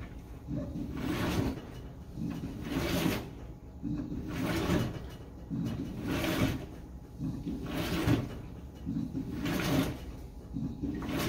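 GE GTW720BSN0WS high-efficiency top-load washer agitating its wet load in the wash phase, before spinning. A regular swish-and-slosh of water and laundry comes about every second and a half to two seconds, six times, with a low churning rumble between.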